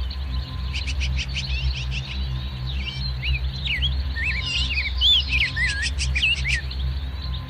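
Songbirds chirping and trilling in quick, overlapping phrases, busiest from about a second in until near the end, over a low steady background of ambient music.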